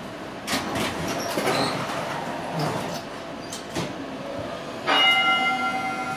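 Z3-class tram's gong, with its unusual, different-sounding tone, struck once about five seconds in and left ringing as several steady tones. Before it, the tram's wheels rumble and click over the track.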